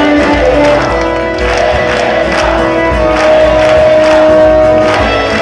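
Music with a steady beat of about two pulses a second and long held melody notes, one drawn out through the middle; the noise of a crowd sits under it.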